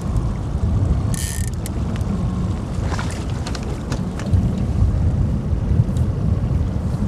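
Wind rumbling and buffeting on the microphone out on the river, with a short hiss about a second in.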